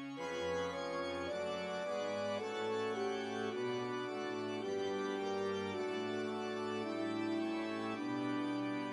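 Background music: slow, sustained keyboard notes, changing about once a second.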